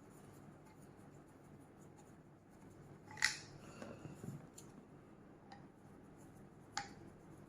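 Small handling clicks and knocks from assembling an angle grinder and its side handle: a sharp click about three seconds in, a second one near the end, and a few faint ticks between.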